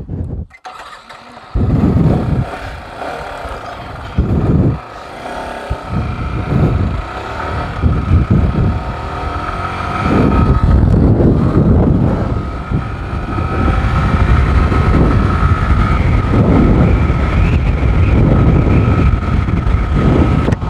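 Yamaha R15 V4 motorcycle's 155 cc single-cylinder engine started and the bike pulled away and ridden, with heavy wind rumble on the microphone that grows steadier and louder once it is up to speed.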